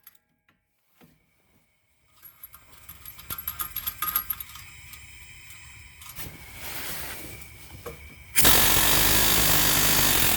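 Light metallic clinks of tools and parts being handled, then, about eight seconds in, a pneumatic air hammer starts and runs loud and steady, driving out the rear strut's upper through-bolt from the knuckle.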